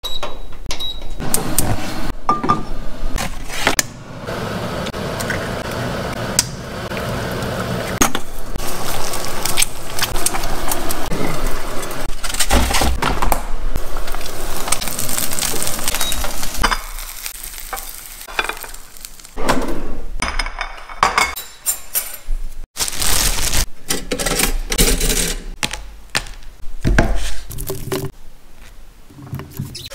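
Eggs frying in a covered pan, sizzling steadily through the middle stretch, among the clatter of pans and utensils. In the last part, clinks and scrapes of cutlery and knocks come in short separate bursts.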